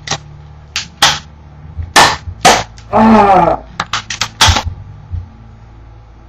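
Two BB guns firing a dozen or so sharp shots at irregular intervals, some in quick clusters, with a short pained yelp about three seconds in.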